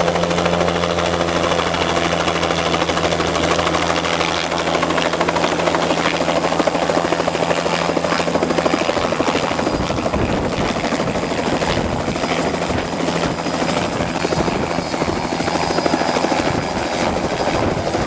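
Light helicopter approaching and hovering low close by: steady rotor and engine noise with a low hum. From about halfway it grows rougher and more ragged as it comes in low over the ground.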